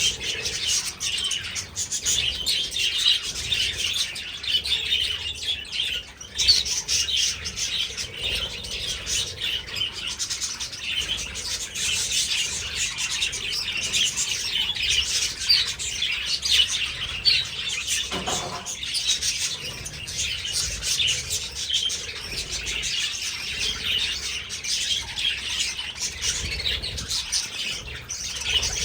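A large flock of budgerigars chattering and chirping at once in an aviary, a dense, continuous mass of high, overlapping calls. About two-thirds of the way through, a brief lower-pitched call stands out.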